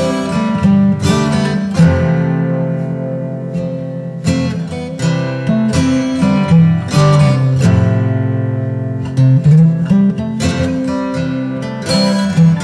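Background music: an acoustic guitar playing a steady run of picked notes and chords.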